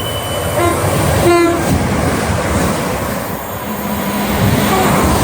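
A passing train's horn gives a short blast about a second in, over the loud, steady rumble of the train running on the rails.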